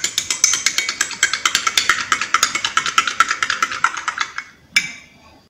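Metal spoon stirring in a glass mug, clinking rapidly against the glass several times a second as sweetened condensed milk is mixed into hot ginger drink. The stirring stops a little past four seconds in, and a single clink follows.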